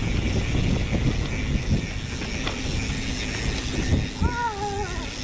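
Mountain bike rolling along a dirt trail: tyre noise and the bike rattling over bumps, with many small knocks. About four seconds in, a short wavering high-pitched tone is heard.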